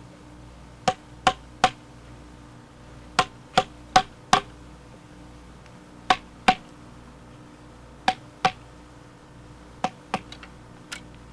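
Sharp knocks in quick groups of two to four, about 0.4 s apart, each with a short ringing tone: blows struck on wood or metal, over a faint steady hum.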